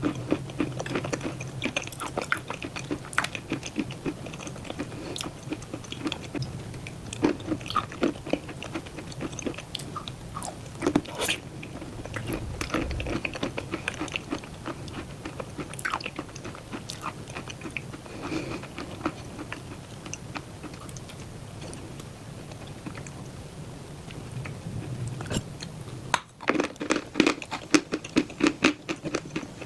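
Close-up chewing and crunching of white chalk with black clay paste, a steady run of sharp crunches with a few louder bites.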